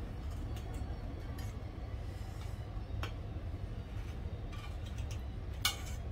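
Metal spatula clinking and scraping on a non-stick frying pan as toasted pav buns are lifted out, a few light clinks and one sharper clink near the end, over a steady low hum.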